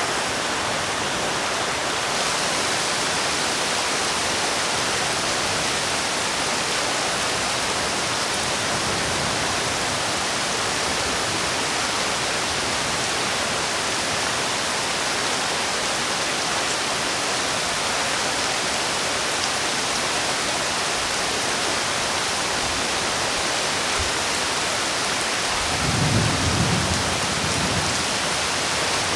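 Steady heavy rain falling, an even hiss throughout. A brief low rumble rises and fades near the end.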